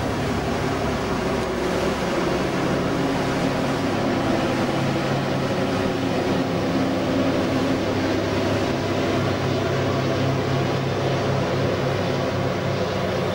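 Steady drone of a river hydrofoil's diesel engines running at speed, with a few constant low hum tones and a rush of water and wind beneath them.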